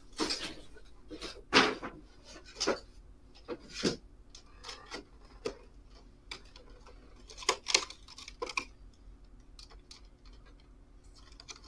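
Clear plastic packaging crinkling and rustling as it is handled and pulled away from a pre-built model spaceship, in irregular crackles with a few sharp snaps. The loudest snaps come about a second and a half in and again around seven and a half seconds, and the handling is quieter after about nine seconds.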